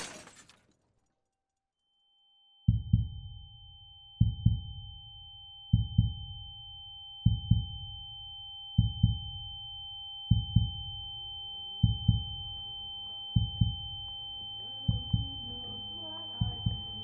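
Heartbeat sound effect: paired lub-dub thumps about every second and a half, over a steady high ringing tone. It begins after about two seconds of near silence, and faint music swells in near the end.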